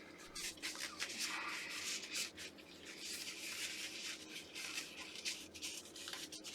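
Faint rubbing and light scraping, with irregular small ticks, from hands working small tools and objects on a repair bench.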